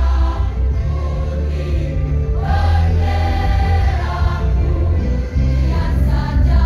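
A choir singing over amplified musical accompaniment with a strong bass line.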